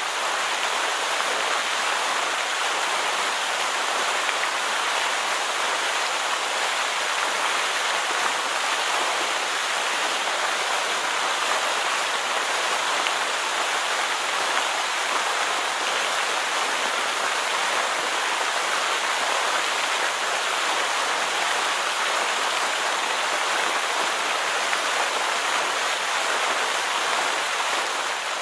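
A small stream cascading over rocks, a steady, even rush of water.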